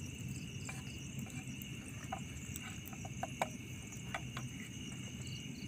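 Crickets chirring steadily over a low steady rumble, with a few light clicks scattered through the middle.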